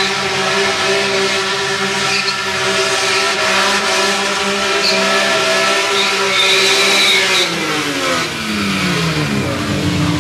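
BMW M3 E46's straight-six engine held at high, steady revs while the rear tyres spin and squeal in a smoky drift and burnout. Near the end the revs fall away in a long downward glide.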